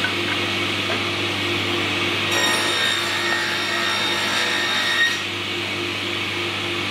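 Sliding table saw running steadily, its blade cutting a spline groove along a timber board from about two seconds in until about five seconds in. The cut adds a high-pitched ringing over the machine's hum.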